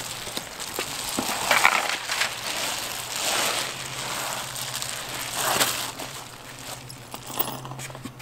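Crinkling and rustling of a foil-faced insulation sheet as a person shifts and kneels on it, in several bursts, with a few small metallic clinks. A faint steady low hum runs underneath.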